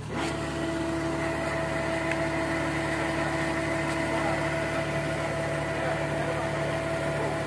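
Heavy truck engine idling steadily, with a constant whine over its low hum.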